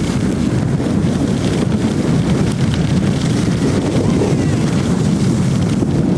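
Wind rumbling steadily and loudly on a camcorder microphone as its carrier skis downhill.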